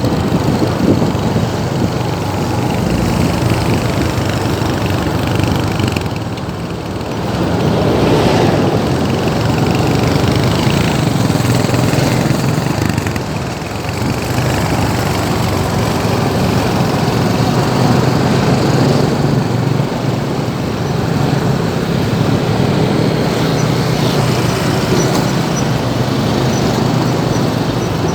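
Road traffic noise: vehicle engines running and passing in slow, congested traffic, a steady mix of engine hum and tyre noise.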